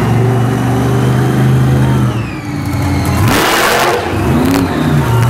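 Monster truck engine held at high, steady revs, then dropping off about two seconds in, with a short loud rush of noise and quick up-and-down revs after.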